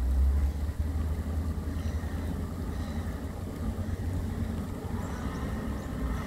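Steady low drone of the plough dredger's engines heard across the water, mixed with low buffeting rumble of wind on the microphone that is strongest about the first half second. A few faint high chirps near the end.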